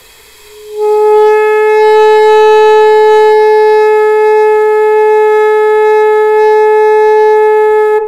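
Alto saxophone mouthpiece and crook blown on their own, without the body of the horn. A faint hiss of air comes first. About a second in, a single straight note sounds and holds steady for about seven seconds, produced once the lower lip firms against the reed.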